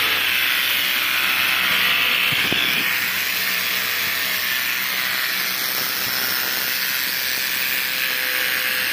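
Electric pet hair clipper running as it shears through a Tibetan mastiff's thick coat: a steady hiss over a low hum, a little brighter for the first three seconds.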